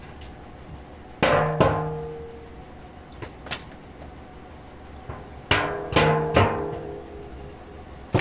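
Wooden hive frames knocking against a metal drum used as a steam wax melter as they are pulled out, each hard knock leaving the drum ringing briefly. There are two knocks about a second in, a couple of light clicks around three seconds, a run of three knocks past the middle, and one more at the very end.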